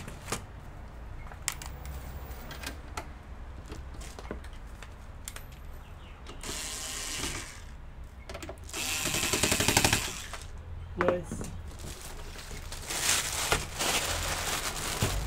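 Handling noise from cabling and moving a small desktop PC: light clicks and knocks as plugs go into the rear ports, and a few rasping scrape-and-rustle stretches as things are shifted on the plastic sheeting. The loudest of these comes about nine seconds in, and a shorter one follows near the end.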